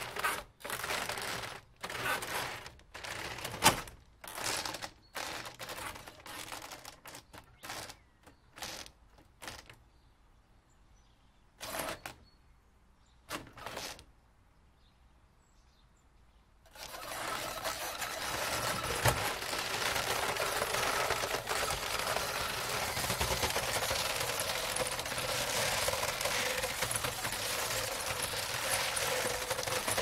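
Thirty-year-old roller shutter rattling as it is worked: a series of short, irregular clattering bursts, then a pause with a few more bursts. A little over halfway through it gives way to a steady, continuous rattle that keeps on.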